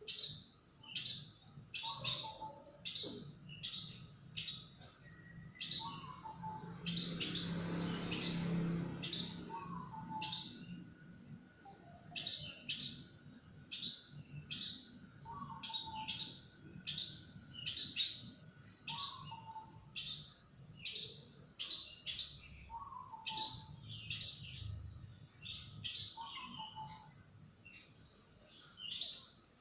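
Small birds chirping steadily: short, high, sharp chirps repeating about once or twice a second, with a lower call every few seconds. A low rumble rises and fades about a third of the way through.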